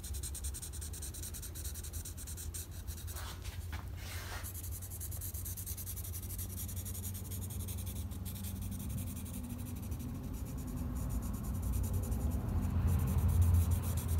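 Blue marker rubbing and scratching across a thick steel plate as a cutting outline is coloured in, over a steady low hum.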